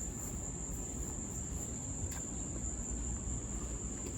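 Crickets chirring as one steady high-pitched drone over a low rumble, with a faint tap about two seconds in.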